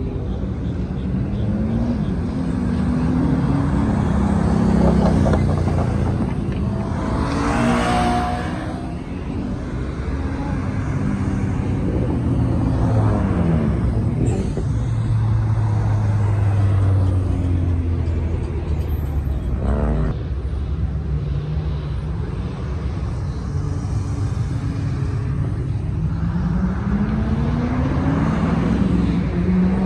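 Several cars driving past one after another on a multi-lane road, over a continuous engine rumble. Engine and exhaust notes rise in pitch as cars accelerate and fall as they go by, with louder passes about a quarter of the way in, near halfway, about two-thirds in and again near the end.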